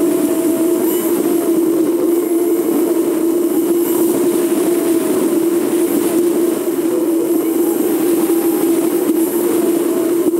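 Steady running noise of a vehicle on the move: road and wind noise with a constant hum, picked up by a camera mounted on the vehicle.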